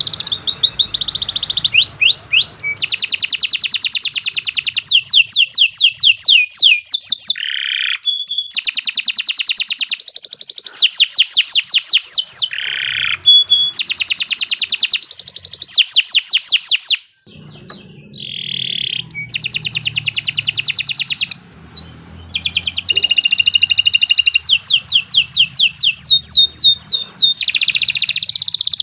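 Domestic canary singing a long, loud song of rapid high trills, phrase after phrase, with short breaks about two-thirds of the way through.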